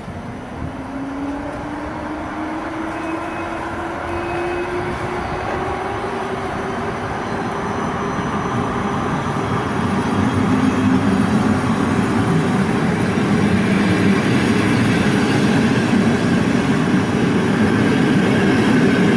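Electric-hauled passenger train pulling out and gathering speed past the platform: coach wheels and bogies rumble louder and louder. Over the first half a whine rises steadily in pitch as the train accelerates.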